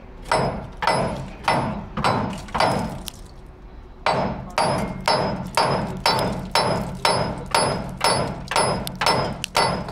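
Hammer pounding a red-hot, rusted gooseneck hitch ball to drive it out, about two blows a second, each with a short metallic ring. Five blows, a pause of about a second, then a steady run of a dozen more.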